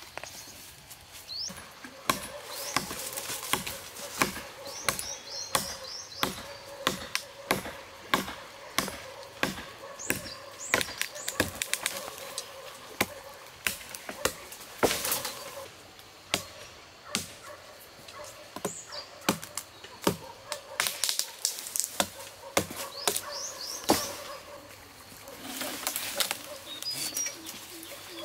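Repeated sharp chopping knocks, irregular at about one or two a second, with birds chirping now and then.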